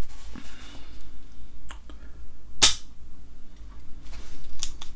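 KJW KC-02 airsoft trigger mechanism worked by hand, with light clicks of the trigger and sear. About two and a half seconds in, one loud, sharp snap as the spring-loaded steel hammer is released and flies up.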